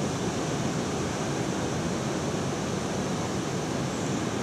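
Steady rushing of fast-flowing river water, an even, unbroken noise.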